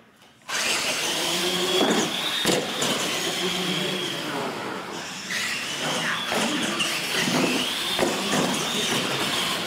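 Two R/C monster trucks' electric motors whining as they launch together about half a second in and race flat out, the high whine rising, dipping midway and climbing again with the throttle.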